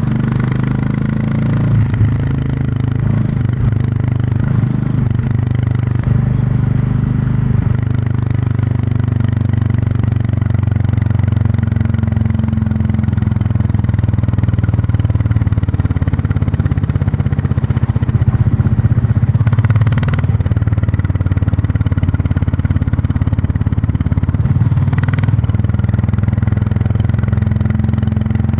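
Royal Enfield Classic 350's single-cylinder engine and exhaust running while riding. The engine speed shifts over the first several seconds and then holds steady at cruise. Two brief rushes of noise come about twenty and twenty-five seconds in.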